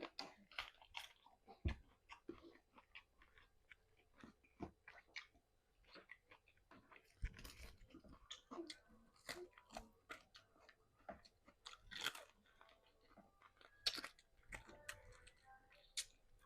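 Close-up chewing and crunching of fried chicken: irregular wet mouth smacks and crisp crunches, with a few sharper crunches standing out.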